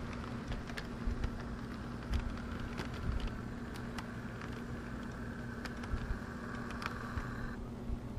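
Bachmann Spectrum model Acela train running past on model track: a steady low motor hum with scattered irregular clicks of the wheels on the rails.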